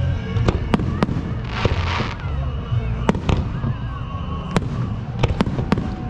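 Festive fireworks display: about nine sharp bangs of shells bursting at irregular intervals, with a half-second crackling hiss about one and a half seconds in.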